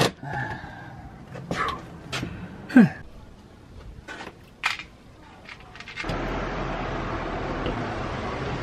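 Scattered knocks and clicks of boxes and packets being handled and set on the wooden shelves of a van's built-in cupboard, with one short falling squeak about three seconds in. From about six seconds in a steady hiss with a low hum takes over.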